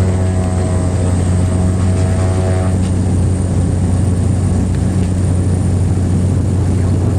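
Cessna 208 Caravan's Pratt & Whitney PT6A turboprop engine and propeller running steadily, a strong low drone with a thin high whine over it. A group of higher tones fades out about three seconds in.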